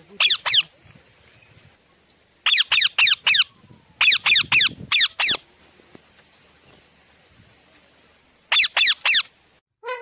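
Pet parrot squawking: short, shrill screeches that each drop sharply in pitch, coming in quick bursts of two to five with pauses of a second or more between bursts.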